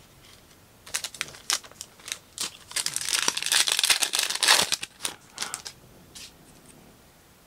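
Crinkling and tearing of a trading card pack's wrapper as it is torn open by hand, starting as scattered crackles about a second in and building to a dense crinkle in the middle before dying away.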